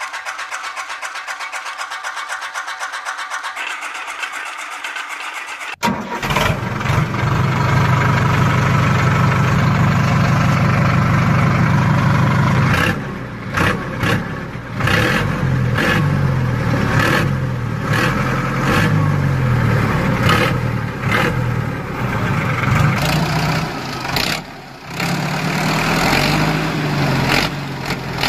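Tractor engine: a light, fast, even running for the first few seconds, then an abrupt switch about six seconds in to a much louder engine running, its pitch rising and falling again and again in the second half like revving.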